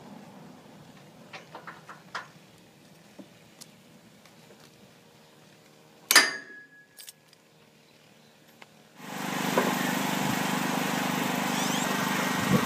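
Ratchet strap hardware clicking lightly as it is handled, then one sharp metallic clank with a brief ring as the strap is flung. About nine seconds in, a steady, louder background noise with a low hum takes over.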